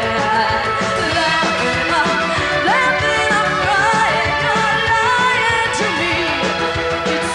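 A synth-pop band playing live: synthesizers and drums under a singing voice whose pitch slides up and down.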